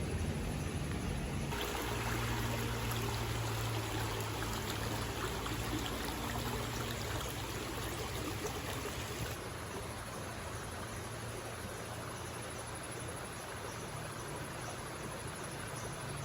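River water flowing and rushing over stones in a steady wash. The sound gets brighter abruptly about a second and a half in and softer again about nine seconds in.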